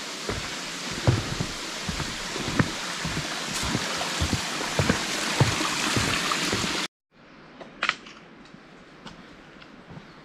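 Mountain stream rushing loudly, with a hiker's footsteps thudding irregularly on the trail. About seven seconds in it cuts off abruptly to a much quieter stretch with a few short sharp ticks.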